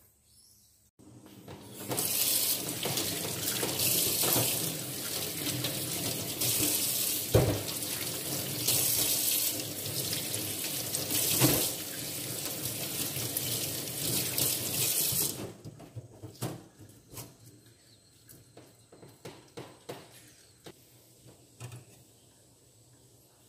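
Kitchen tap running into a stainless steel sink, the stream splashing over hands and a mesh strainer of sea pineapples as they are rinsed, with a couple of louder knocks. The water starts about two seconds in and shuts off about fifteen seconds in, leaving a few faint clicks and knocks.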